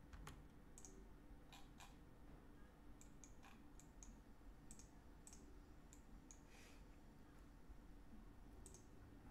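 Faint computer mouse and keyboard clicks: scattered single clicks, some in quick pairs, over a faint low hum.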